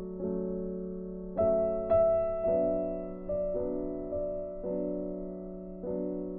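Background music: a soft piano playing slow, held chords, with two louder notes struck about a second and a half in.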